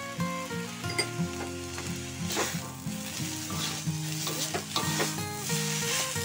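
Glutinous rice sizzling in a hot wok as a spatula scrapes and tosses it, working the soy sauce mixture in, with the scraping strokes starting about two seconds in and coming in quick repeated passes. A melody of background music plays throughout.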